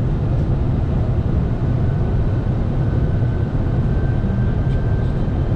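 Steady low in-flight noise on the flight deck of a Boeing 747-400 freighter on approach, a constant rush of airflow and engines. A faint, thin steady tone comes in about two seconds in.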